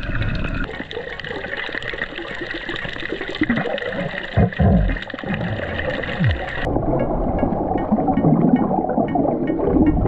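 Muffled underwater sound picked up by a submerged camera: water rushing and bubbling, with low gurgling sweeps in the middle. About two-thirds through the sound changes abruptly and becomes duller and lower.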